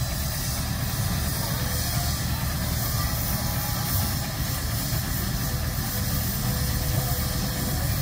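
Steam traction engines in steam, giving a steady hiss over a low, even rumble.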